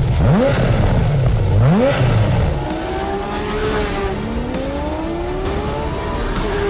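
Porsche Carrera GT's 5.7-litre V10 engine revved sharply twice, the pitch shooting up and falling back each time. From about the middle on, the note climbs more slowly and for longer as the car accelerates.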